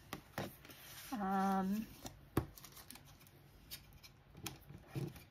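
Light handling of paper and plastic packaging: a few soft clicks and taps, with a short hummed note about a second in.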